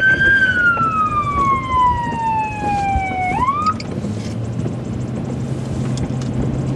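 Fire department emergency-vehicle siren wailing. Its pitch falls slowly over about three seconds, then sweeps quickly back up and cuts off a little past the middle. After that comes the steady hum of a vehicle engine with road noise.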